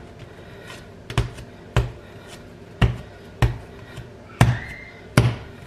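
A large block of cold bread dough being thumped down onto a stone countertop by hand as it is shaped: about six dull thuds, half a second to a second apart.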